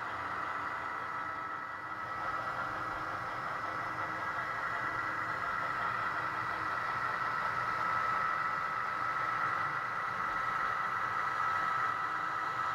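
HO scale model diesel locomotives running on a DCC layout: a steady engine sound with a constant high whine, a little louder from about two seconds in.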